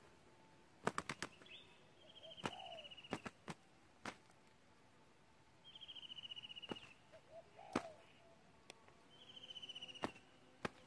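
Spotted doves fighting: sharp wing slaps, a quick cluster of them about a second in, then single slaps every second or so. Between them an insect trills in pulses three times, each trill about a second long.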